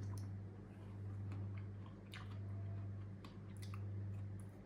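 Chewing a mouthful of avocado omelette with toasted bread: scattered small mouth clicks and squelches over a steady low hum.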